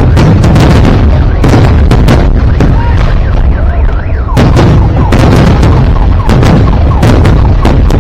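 Fireworks display: rapid, overlapping shell bursts and bangs over a constant low rumble, loud enough to overload the recording, with short whistling glides in the second half.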